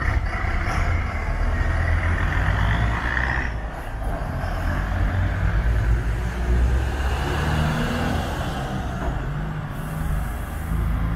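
Diesel engine of a bi-articulated bus running with a low, steady hum, with a short hiss of air, typical of an air brake release, about ten seconds in.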